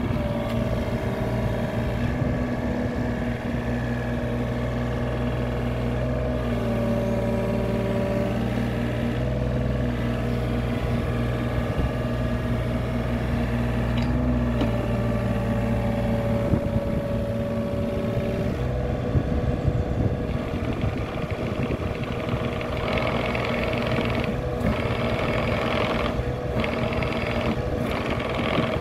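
Takeuchi TB28FR mini excavator's diesel engine running steadily under hydraulic load as the boom, arm and blade work. Its note steps up and down several times as the hydraulics take load. Near the end a harsher hissing and rattling joins in as the machine pushes itself up on its bucket and blade.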